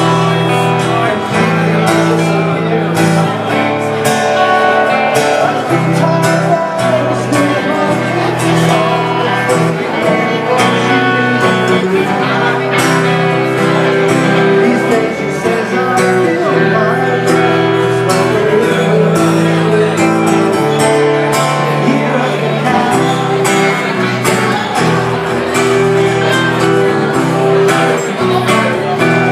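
Live guitar duo, an acoustic guitar and an electric guitar, playing a soft-rock song through a small PA, with chords and bass notes changing every second or two.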